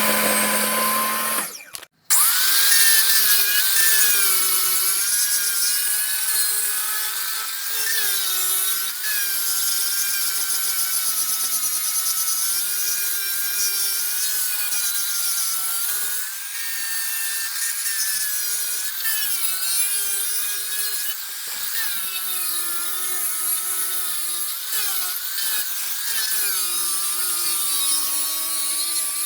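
An electric power tool working wood, its motor note wavering and dipping as the load changes. A different, steadier machine sound stops abruptly about two seconds in, just before it.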